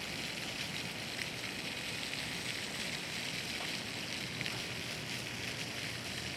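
Park water fountain splashing: a steady hiss of falling water.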